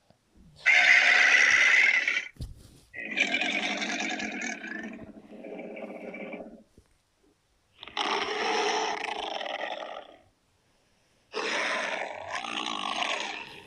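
Custom-made Godzilla roar sound effects in the style of the Millennium films: four separate roars with short silent gaps between them, the first the loudest. A brief click falls just after the first roar.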